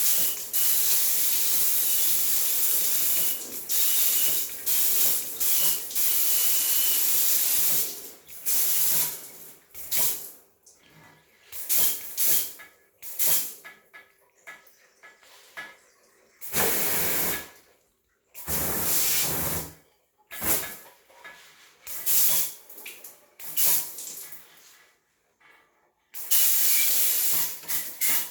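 Water sprayed by hand, a hissing spray. For the first several seconds it runs almost without a break. After that it comes in separate bursts of varying length with short pauses between them.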